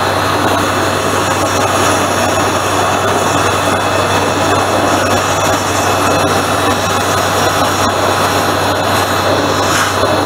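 Waterjet cutting machine running: a loud, steady jet hiss with a low, even hum underneath.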